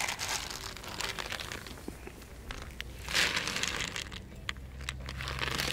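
Crinkling of a plastic cat-food bag and dry kibble spilling onto concrete, in three short bursts with scattered small clicks between.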